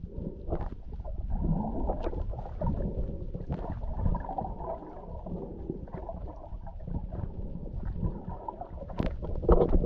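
Muffled, uneven underwater rumble and gurgle of water moving against a camera held below the surface, with a few scattered clicks. It grows louder near the end.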